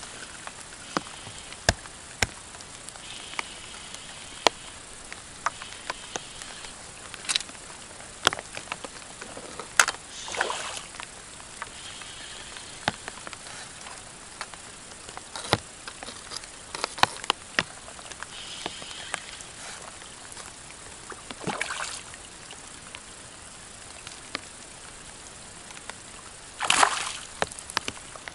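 Steady rain falling on a pond, with many sharp drops tapping close by. Near the end, a short splash as a cast feeder lands in the water.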